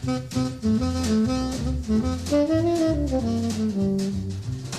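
Intro music: a jazz tune with a saxophone playing the melody over a walking bass and drum kit.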